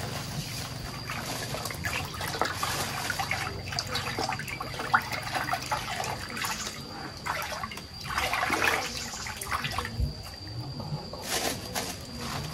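Water splashing and sloshing in irregular bursts, loudest a little past the middle.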